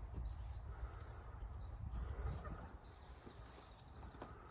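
Small bird chirping faintly, short high-pitched chirps repeating about twice a second, over a low, steady rumble.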